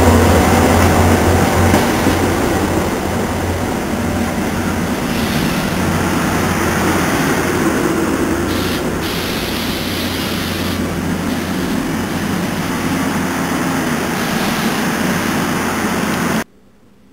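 NJ Transit commuter train's passenger coaches rolling past at close range, a steady loud rumble with a low drone that fades over the first couple of seconds. The sound cuts off abruptly near the end.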